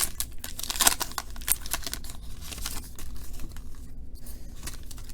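Foil wrapper of a baseball trading card pack being torn open and crinkled, in a string of irregular crackles that thin out toward the end.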